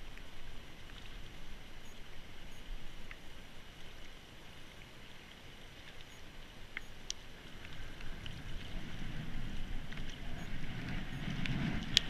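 River current rushing steadily around a wading angler, with a few faint clicks and one sharper click just before the end. A low rumble of wind on the microphone builds over the last few seconds.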